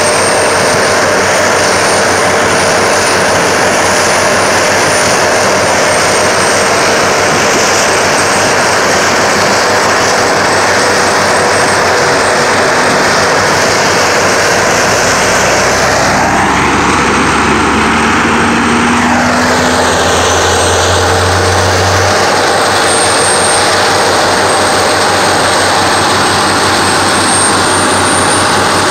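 Seismic vibrator trucks' engines and hydraulics running loud and steady, with a jet-like rushing sound. About halfway through, a deeper hum comes in, holds for several seconds and stops suddenly.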